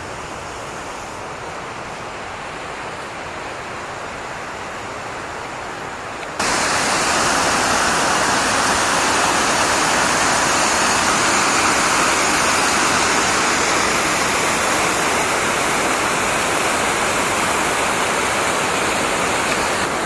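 A steady rushing noise that jumps suddenly louder about six seconds in; the louder part is a mountain stream cascading over rocks close by.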